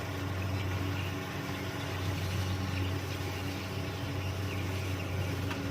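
Kubota DC-70 combine harvester's diesel engine running steadily, a constant low hum.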